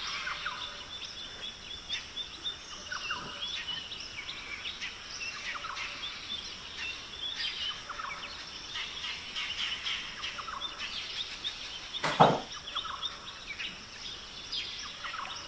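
Small birds chirping and singing over a steady background hiss, with one loud knock about twelve seconds in.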